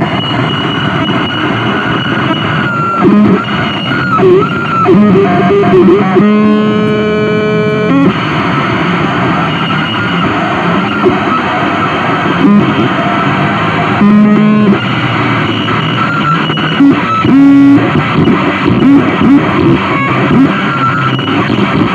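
Harsh noise music played live on electronics: a loud, dense wash of distorted noise with squealing, wavering tones. A held buzzing tone with many overtones cuts in about six seconds in for about two seconds, and returns briefly about fourteen seconds in.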